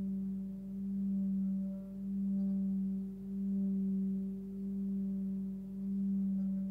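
A 19.8 cm hand-forged Sun Moon singing bowl tuned to G (about 193 Hz) is sung by a wooden mallet around its rim. It holds one deep tone with fainter overtones above it, swelling and fading in a slow pulse about every second and a quarter.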